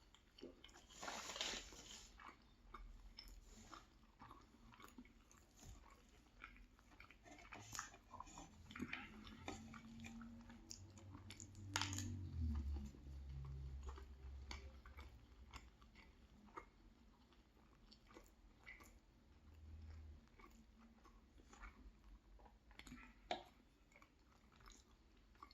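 A person chewing and biting food close to the microphone, with small wet clicks and crunches; louder crunches come about a second in and again around twelve seconds in, and a low hum sounds briefly in the middle.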